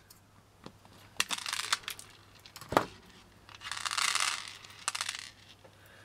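Pearl beads clicking and rattling as they come off a necklace string and drop into a tray of loose pearls: scattered small clicks, one sharper click near the middle, and a brief rattling rush about four seconds in.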